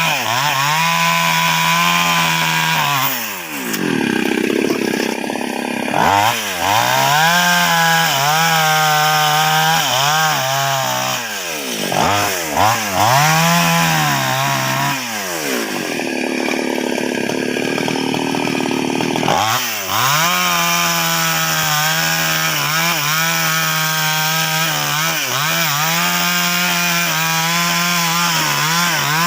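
Chainsaw running at high revs, cutting sengon wood. Its engine pitch sags and recovers several times, around 3, 11, 15 and 20 seconds in, as the chain bogs in the cut and the throttle eases off.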